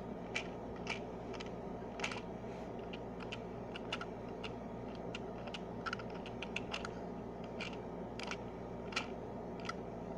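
Irregular plastic clicking of a toy washing-machine candy kit being turned by hand to churn the drink mix, about two or three clicks a second, coming faster near the end.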